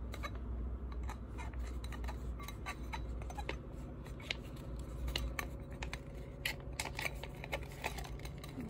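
Plastic stick-pack pouch of juice concentrate crinkling and crackling with irregular sharp clicks as it is squeezed out into a glass.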